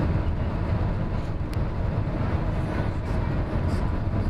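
Car driving on a sealed road, heard from inside the cabin: a steady low rumble of tyres and engine.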